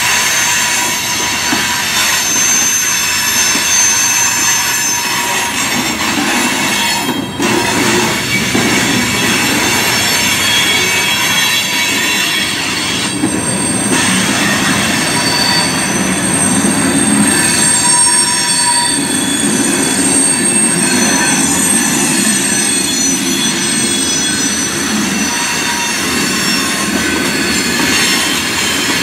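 Freight train rolling past, its steel wheels rumbling and clattering on the rail, with several high, thin wheel squeals whining over it.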